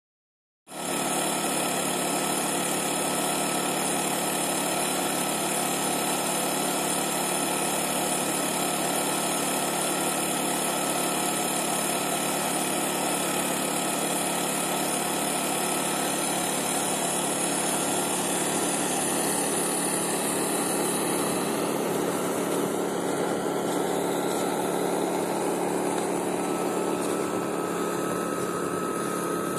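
A small motor or engine running steadily, a constant hum with several held tones over a hiss; its tones shift slightly about two-thirds of the way through.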